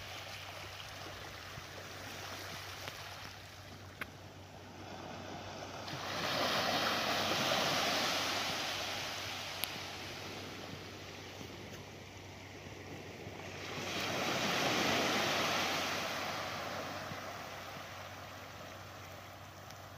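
Small waves of a calm sea washing onto a sandy beach, the wash swelling twice, about six and fourteen seconds in, then ebbing.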